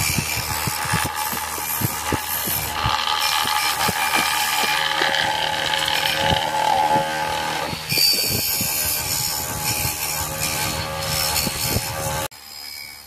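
Bench grinder running with a wire brush wheel scrubbing rust off a steel trigger guard, a steady motor hum under a continuous scratchy rasping with many irregular clicks as the part is worked against the wheel. The sound drops away abruptly about a second before the end.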